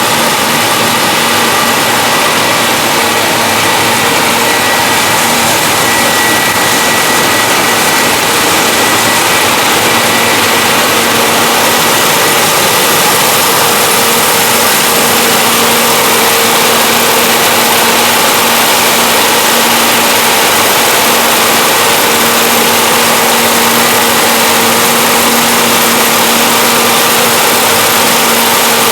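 John Deere 6620 combine running steadily while harvesting corn: loud, even machinery noise with a few held humming tones that grow stronger about halfway through.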